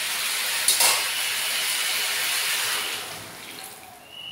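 Water poured into a hot metal kadai of frying pumpkin, potato, soya chunks and chana dal, hissing loudly as it hits the hot oil, with a sharp clink about a second in. The hiss dies away about three seconds in as the pan cools.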